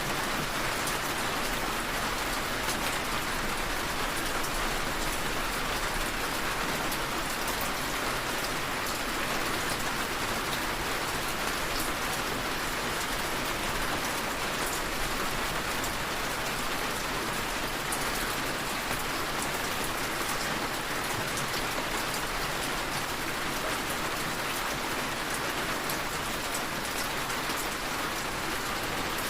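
Steady rain falling on a surface, an even hiss of many fine drops with no let-up.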